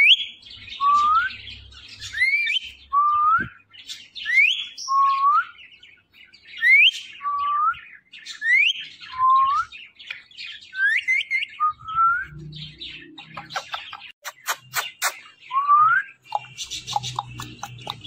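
Ringneck parrot calling: a repeated pattern of short rising whistled calls, a higher one followed by a lower one, about every two seconds. A quick run of sharp clicks comes about two-thirds of the way through.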